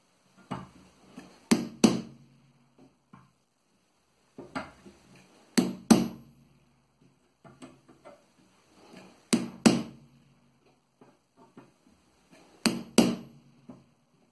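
Hammer blows on a chisel set against a wire coil wound on a rod over a wooden block, cutting the coil into rings for chainmail. The blows come in pairs, four pairs a few seconds apart, with lighter taps between them.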